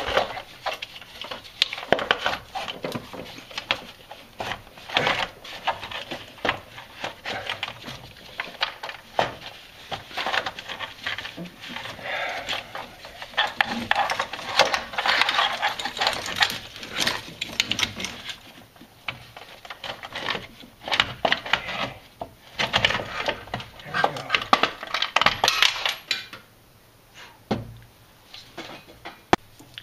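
The valve cover of a Chrysler 4.7 L V8 being worked loose and lifted off the cylinder head: irregular clicks, scrapes and knocks as it shifts against the engine parts, quieter near the end.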